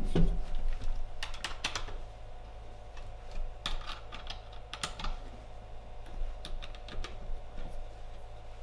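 Irregular small clicks and taps of an Allen key working in hex socket screws, snugging up the bolts that clamp a halberd's langets and blade. The clicks come in loose clusters, busiest in the first half.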